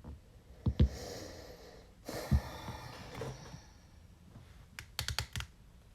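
Trading cards and plastic card sleeves being handled: rustling, sliding noise for a couple of seconds, with scattered light clicks and taps and a quick run of about five clicks near the end.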